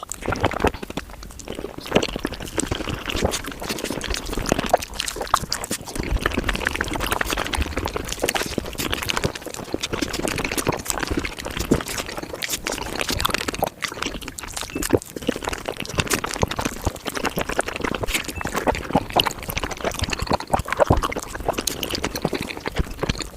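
Close-miked wet chewing, smacking and squelching of someone eating soft desserts, sped up five times so the mouth noises run together into a dense stream of rapid wet clicks.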